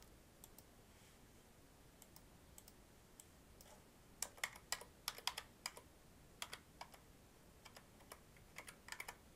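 Faint typing on a computer keyboard: scattered single clicks at first, then a quick run of keystrokes about four seconds in and another run near the end, as a spreadsheet cell is retyped.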